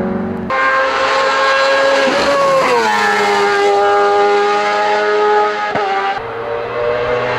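Race car engine running at high revs; its pitch drops about two and a half seconds in and then holds steady. Near the end the sound changes abruptly to a different, rougher engine note.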